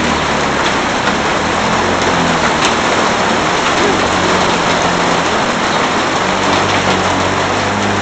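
Heavy rain pouring down in a steady hiss, with a petrol rotary lawn mower's engine running at a steady pitch underneath as it is pushed through long wet grass.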